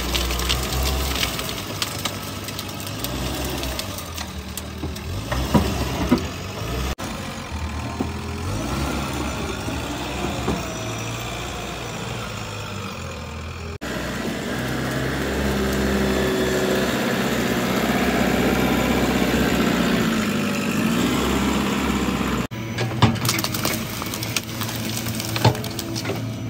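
JCB 3DX backhoe loader's diesel engine running and revving under load, its pitch rising and falling as the machine works. Sharp cracks and knocks come and go over the engine, loudest near the start and in the last few seconds.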